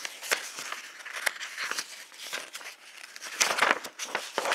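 Hands handling and opening a cardboard box: a steady run of rustling, scraping and small clicks of card, loudest about three and a half seconds in.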